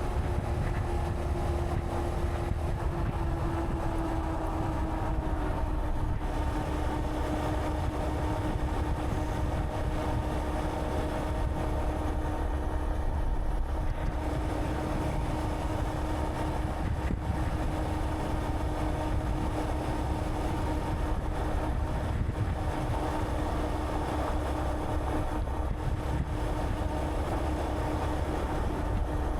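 Honda Monkey 125's single-cylinder four-stroke engine running steadily on the move, with wind rushing over the microphone. The engine note eases down slightly a few seconds in, then holds steady.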